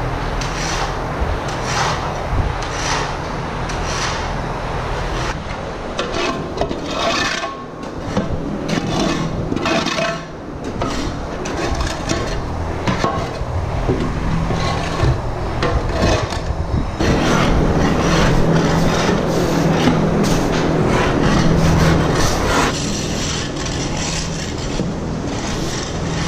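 A long-handled tool scraping loose wood shavings across bare concrete in repeated rasping strokes, about one a second, to clear the stall beds down to flat concrete. A steady low hum joins partway through and stops a few seconds later.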